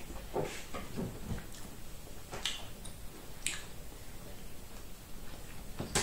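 A few faint, scattered clicks and mouth smacks of eating boiled corn on the cob.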